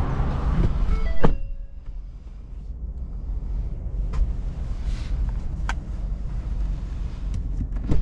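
A few sharp clicks from the pickup's cab fittings over a low steady rumble. The loudest click, about a second in, is followed by a short steady tone, and two lighter clicks come around four and five and a half seconds.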